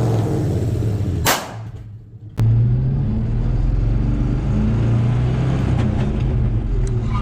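A motor vehicle engine running with a steady low rumble. It cuts in abruptly about two and a half seconds in, after a brief sharp whoosh and a short lull.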